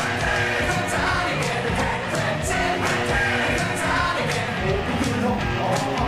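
Glam rock song with a male lead vocal over electric guitars and drums, with cymbal strokes keeping a steady beat.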